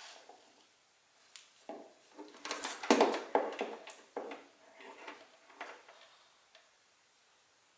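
A Vector battery maintainer and its cord being handled and moved about: a series of short plastic knocks and rattles. They are loudest about three seconds in and die away after six seconds.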